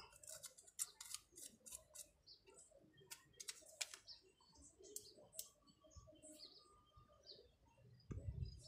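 Near silence broken by faint, scattered clicks and light taps as small chainsaw parts are handled on a workbench, with a soft low thump near the end.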